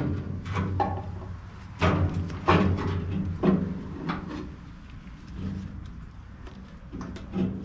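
Handling knocks and clunks of a Delta band saw's metal transmission being set into the saw: several separate sharp knocks, most of them in the first half, with a quieter stretch before a last knock near the end.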